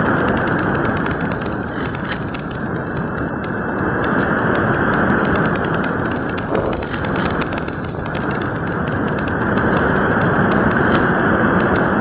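Steady rushing airflow noise from a keychain camera riding on an electric RC glider in flight, wind on the small microphone, swelling and easing slightly.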